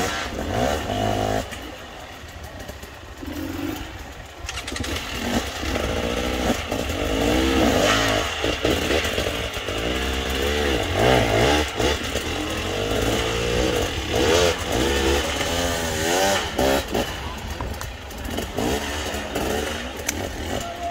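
Off-road enduro motorcycle engines revving hard in repeated bursts while the bikes claw up a steep, rocky slope. The engine pitch rises and falls over and over, with two or more bikes revving at once.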